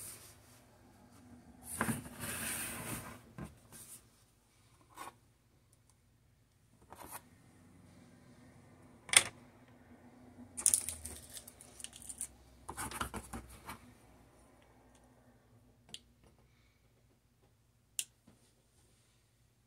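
Cables and small parts being handled and set down on a table: two stretches of rustling, with several sharp taps and clicks as pieces are put in place, the last one near the end.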